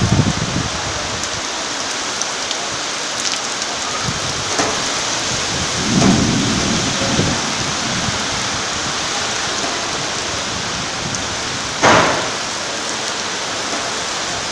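Storm rain and wind making a steady hiss, with a few short louder bursts, the sharpest about twelve seconds in.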